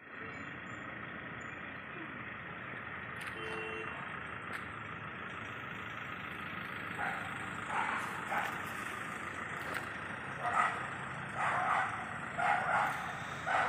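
Steady background hum of a quiet city road at night. From about seven seconds in, a series of short, louder calls roughly a second apart.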